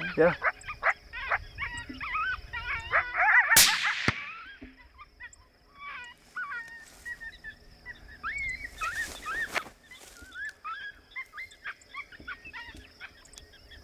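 A single rifle shot about three and a half seconds in, the loudest sound here, cutting through a run of high yelping and whining cries that go on scattered after it, over a steady high insect trill.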